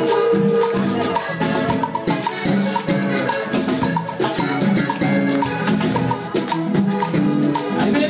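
Live vallenato music: a child plays a button accordion with the band, over bass and the steady scrape of a metal guacharaca keeping the rhythm.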